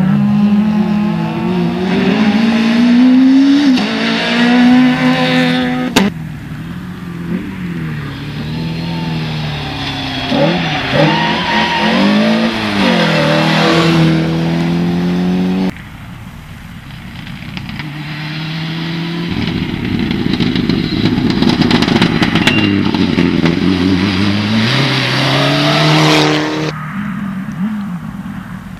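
Rally car engines at high revs, accelerating hard and changing gear, with the pitch climbing and dropping again and again as the cars pass. The sound jumps abruptly from one car to the next three times.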